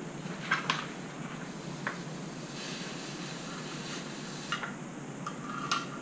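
Steady low room hum with a few light clicks and taps from handling the wires and soldering iron at the joint, and a soft hiss for a couple of seconds midway.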